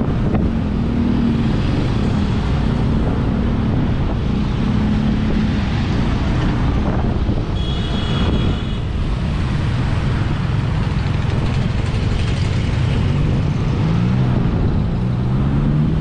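Wind rushing over the microphone and road noise from a moving vehicle, with a low engine hum that rises and falls. A short high-pitched tone sounds about halfway through.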